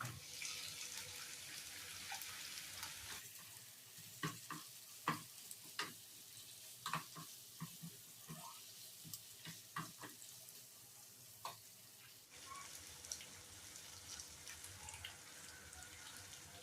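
Chicken curry sizzling in a pan, with a spoon knocking and scraping against the pan many times through the middle.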